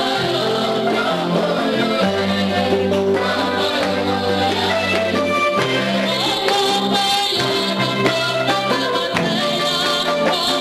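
Several women singing a worship song together in held, sustained notes over instrumental backing with a steady bass line.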